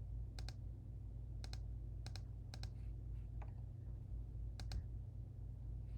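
A handful of faint, scattered clicks from computer keys and mouse buttons, some in quick pairs, over a low steady hum.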